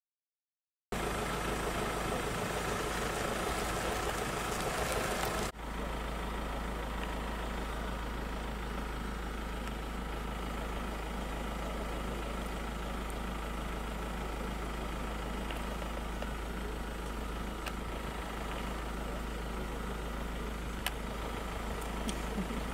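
Vehicle engine idling steadily, a low even rumble that drops slightly in level about five seconds in, with a few faint clicks.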